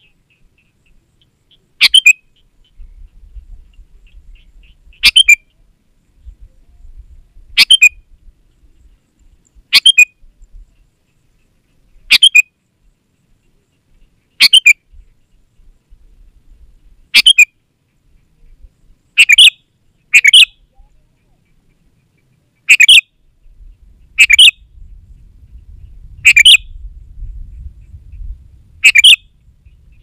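Sooty-headed bulbul (kutilang) calling: a series of short, loud calls repeating about every two to two and a half seconds, about thirteen in all. Two calls come in a quick pair about two-thirds of the way through.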